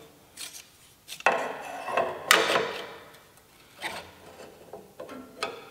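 Steel combination square and rule being set down and slid on a cast-iron bandsaw table: a few metal scrapes and light clinks. The loudest comes about two seconds in, after a longer scrape.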